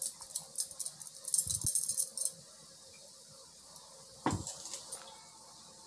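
Steel kitchenware clinking and scraping as a steel bowl of ground paste is handled over a clay cooking pot: a quick run of small metallic clinks in the first two seconds, then a single sharper knock a little after four seconds.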